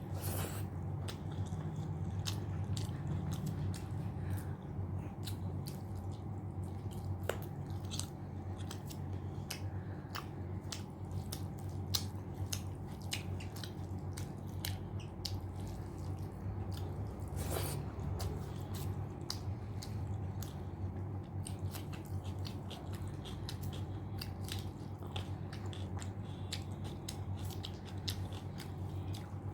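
Close-miked chewing, with many small wet mouth clicks and smacks, of someone eating spicy mutton curry with rice, over a steady low hum.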